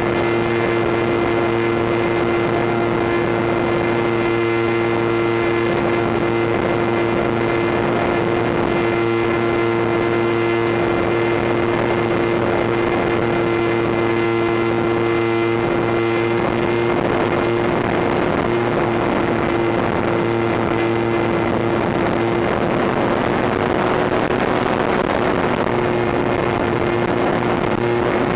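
Electric motor and pusher propeller of a HobbyKing Bixler RC plane running steadily in flight, a constant droning whine heard through its onboard camera, with wind rushing past the plane. The pitch creeps up slightly near the end.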